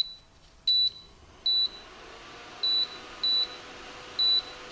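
Rosewill induction cooktop's control panel beeping five times as its buttons are pressed to set the heat; each beep is a short high tone. From about two seconds in, a steady whir rises behind the beeps as the cooktop starts heating and its cooling fan comes on.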